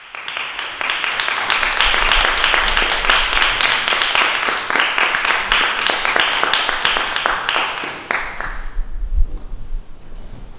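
Audience applauding, dense clapping that dies away about eight seconds in.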